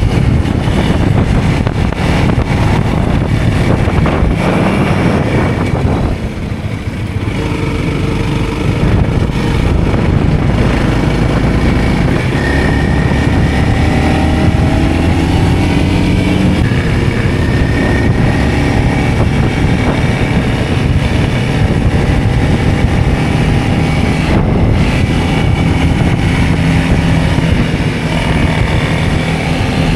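Motor vehicle engine running steadily under load, its pitch rising and falling with the throttle, with a brief dip in level about six seconds in.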